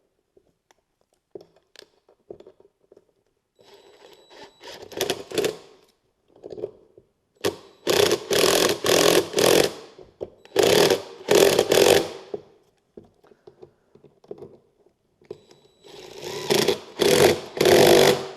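A handheld power driver run in short trigger bursts at a steady pitch, driving fasteners home. It comes in three groups of pulls: a few around five seconds in, a longer run in the middle and a last few near the end.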